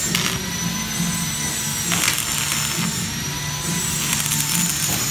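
Stick (arc) welding on a steel frame: the electrode arc crackles and sizzles, with a low hum underneath that swells and fades.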